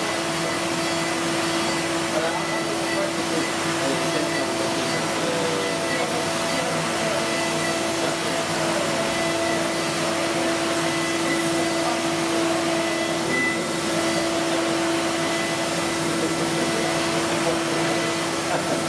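CNC milling machine spindle running at a steady high speed while its small end mill cuts a workpiece, a constant high-pitched whine over a steady hiss.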